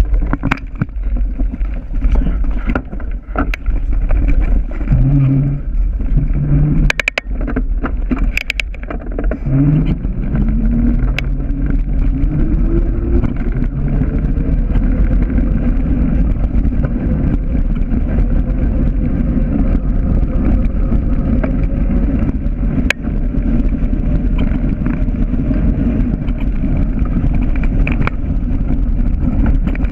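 Wind buffeting a bike-mounted action camera's microphone and tyres rumbling over a gravel track while riding. There are sharp clatters twice, about seven and eight seconds in, and from about ten seconds in a whine that rises in pitch as the bike picks up speed, then holds steady.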